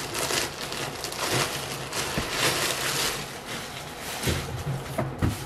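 Packaging wrap crinkling and rustling in irregular bursts while folded shorts are pulled out of it by hand.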